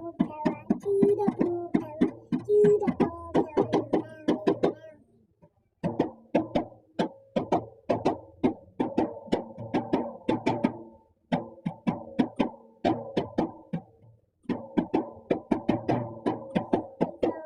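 Instrumental music: a quick, even run of short plucked-string notes with percussion and no singing, breaking off briefly three times.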